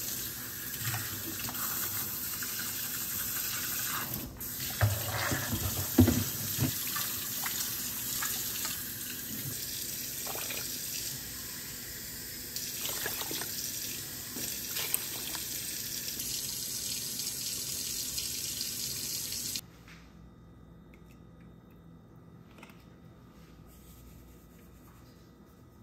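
Kitchen tap running into a stainless steel sink while rice is rinsed by hand in a pot, with a few sharp knocks of the pot. The running water cuts off suddenly near the end, leaving only faint background sound.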